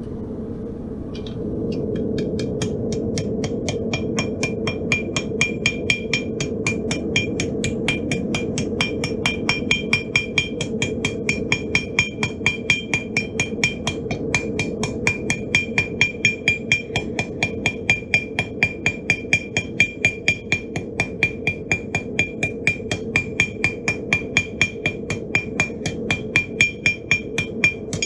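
Steady, rhythmic hammer blows on hot steel on a 65 lb Vevor anvil, about three a second, each with a bright ringing ping. They start about a second and a half in and are drawing out the thin stem of a forged leaf for a keychain loop. A steady low rush runs underneath.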